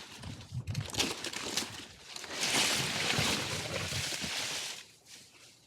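Leafy tree branches rustling and crackling, loudest for a couple of seconds in the middle, then dying away.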